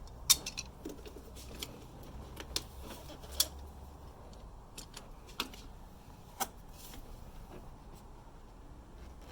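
A few separate light clicks and taps of hand work on the upper radiator hose clamp, with a faint low hum underneath.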